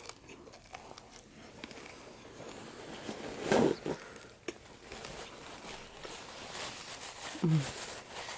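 Eating sounds at a table: soft chewing and small clicks. A louder bite or crunch comes about three and a half seconds in, and a short falling hum-like voice sound comes near the end.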